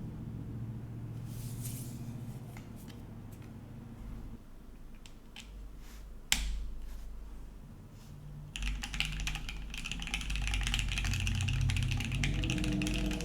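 Mechanical keyboard with an aluminium plate, lubed and filmed OPBlack switches and NicePBT keycaps: a few scattered clicks and taps, one sharp click just past halfway, then typing starts about eight and a half seconds in as a rapid, continuous run of keystrokes. A low hum runs underneath.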